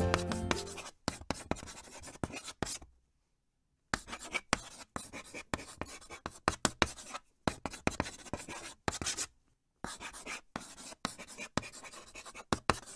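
Chalk scratching and tapping on a blackboard in quick, irregular writing strokes, stopping twice for about a second. Background music fades out in the first second.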